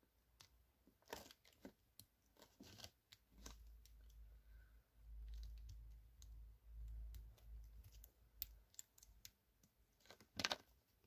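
Faint clicks and small knocks of LEGO plastic parts being pulled off and pressed onto a minifigure, with a low dull rumble from hands handling the pieces in the middle and a sharper click about ten and a half seconds in.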